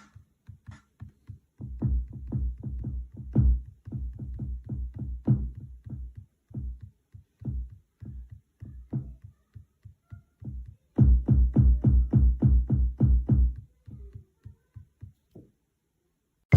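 Electronic drum samples triggered from the pads of a Native Instruments Maschine Mikro Mk3: deep kick-heavy hits played in irregular finger-drummed patterns, two quick flurries of about five hits a second, stopping near the end.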